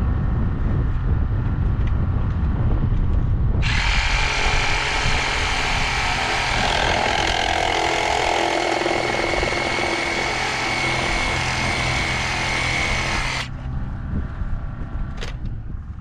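A handheld power tool runs steadily with a high whine for about ten seconds, starting a few seconds in and cutting off sharply, most likely cutting into the drainage tile main so a Y fitting can be inserted. A low engine rumble from the machinery runs underneath, and there is a single sharp click near the end.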